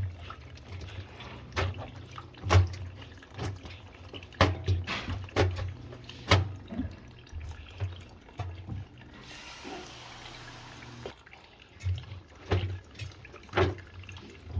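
Water draining out of a washing machine that won't drain, splashing and dripping irregularly into a container, with a steadier rush of about two seconds partway through.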